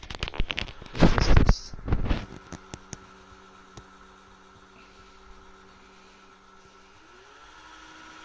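A few loud knocks and clicks of metal parts being handled on a cast-iron mini lathe, then the lathe's spindle motor runs with a steady hum, its pitch sliding down a little near the end.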